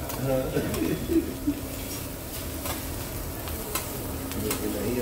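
Food sizzling on a hot hibachi griddle, with scattered sharp clicks of spatulas striking and scraping the plate.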